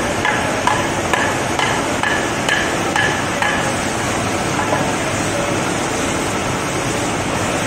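A series of about eight sharp knocks from the fish cutter's knife, roughly two a second, stopping about halfway through, over steady market background noise.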